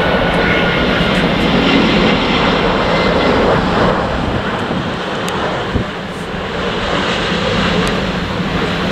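Airbus A350's Rolls-Royce Trent XWB engines as the airliner passes low on final approach: a steady jet rush and rumble with a faint high whine falling slowly in pitch near the start, easing a little midway before building again.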